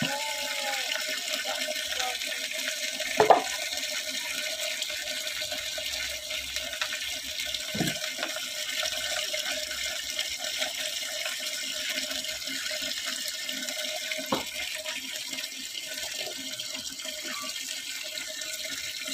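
Steady stream of water splashing from a pipe into a large plastic bucket full of muddy water, a homemade water filter being filled. Three sharp knocks come through, about three, eight and fourteen seconds in, the first the loudest.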